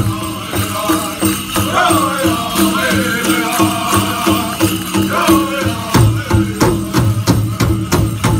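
Powwow drum group singing a chicken dance contest song over a steady, hard drum beat; the drumming gets louder about six seconds in.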